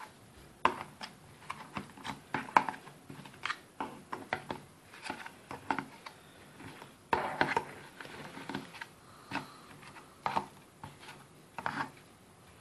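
Eggs being shuffled by hand in a plastic egg carton: irregular light clicks and knocks of eggshells against the plastic and against each other.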